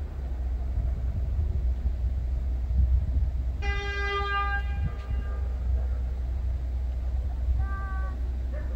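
Distant train horn: one blast of a little over a second, then a short toot about four seconds later, over a steady low rumble.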